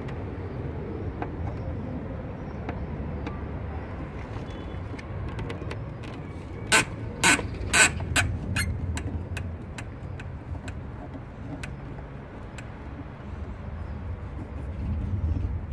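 Sharp plastic clicks from a BMW E90's door trim as the armrest pull handle is pulled and worked by hand: three or four loud clicks close together about seven seconds in, then fainter single ticks about once a second. A steady low rumble lies underneath.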